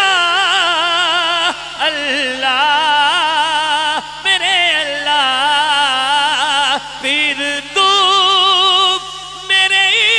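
A man singing a naat into a handheld microphone, holding long drawn-out notes with a wide vibrato, in phrases broken by short pauses for breath.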